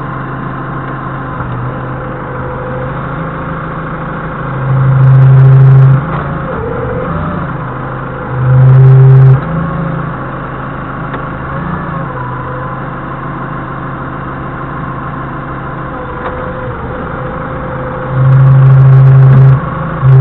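Doosan 4.5-ton forklift engine idling steadily, revved up three times for about a second or so each, near 5 s, near 9 s and again near the end.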